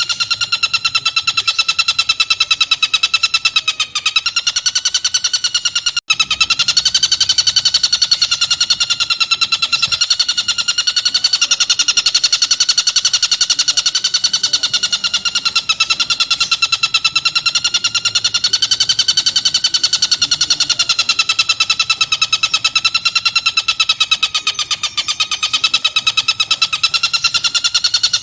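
Tengkek buto (collared kingfisher) calling nonstop in a fast, dense, rapid-fire chatter, high-pitched and steady, with only an instant's break about six seconds in.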